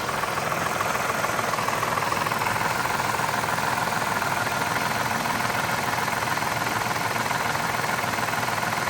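A 2003 Mazda 6's 3.0-litre V6 idling steadily with a fast, even knocking from the engine. The owner takes it for a bad lifter or a worn timing chain, or possibly piston knock.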